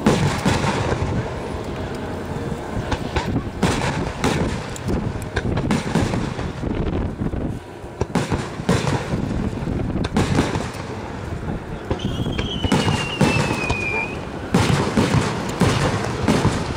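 Aerial fireworks shells bursting one after another in a continuous run of booms and crackles. About twelve seconds in, a high whistle falls in pitch for two seconds.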